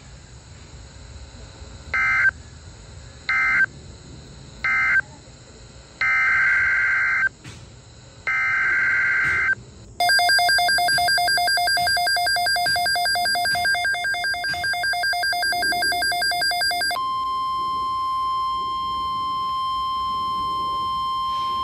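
Emergency Alert System data bursts, harsh warbling digital tones. Three short end-of-message bursts mark the end of one alert, then two longer header bursts begin the next. A harsh, rapidly pulsing buzz follows for about seven seconds, and after it the steady 1050 Hz NOAA Weather Radio alert tone.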